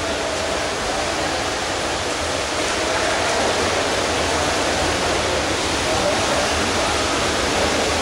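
Steady wash of splashing water from water polo players swimming in an indoor pool, echoing in the hall, with faint shouting voices mixed in.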